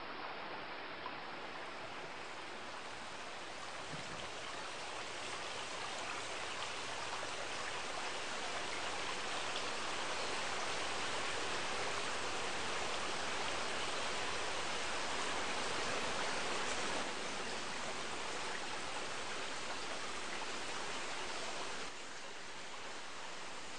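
Steady rush of a small stream's flowing water, slowly growing louder, then dropping suddenly twice near the end.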